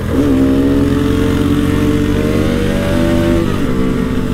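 Motorcycle engines running hard in a road race, led by the Bajaj Pulsar RS200's single-cylinder engine under acceleration, with a Royal Enfield Bullet alongside. The engine pitch dips briefly and recovers twice, just after the start and again about three and a half seconds in.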